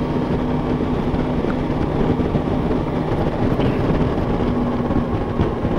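Motorcycle running steadily at road speed, its engine a low steady hum under a constant rush of wind and road noise.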